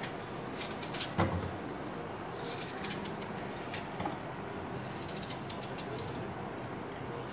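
Soft rustling and small clicks from hands and sleeve moving close to the microphone, in several short clusters, with a soft knock about a second in, over a steady hiss.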